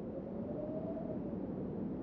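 Steady, low-pitched wind rushing, with a faint whistling tone that rises and then falls over the first second and a half.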